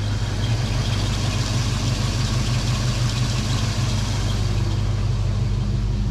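Ford Mustang 5.0 V8 idling steadily at around 1,000 rpm with no surging, a smooth idle that the owner puts down to having cleaned out its soot-clogged EGR valve.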